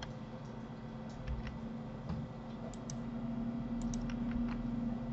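Computer mouse and keyboard clicking as bones are selected and posed in Blender: a dozen or so scattered clicks, several in quick pairs, over a steady low hum.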